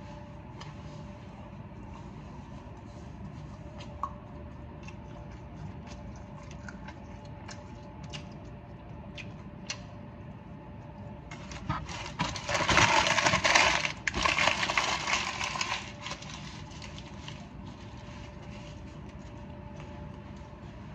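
Close-up eating sounds: chewing with small scattered mouth clicks. About halfway through comes a loud crinkling of fast-food paper packaging that lasts a few seconds.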